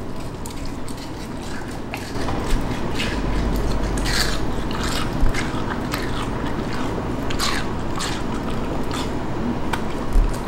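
A beagle crunching and chewing a piece of watermelon: a run of irregular, wet, crisp bites, loudest about halfway through.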